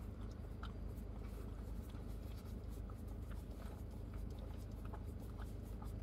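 Doberman licking a puppuccino of whipped cream from a small cup: faint, irregular wet licking clicks over a steady low hum.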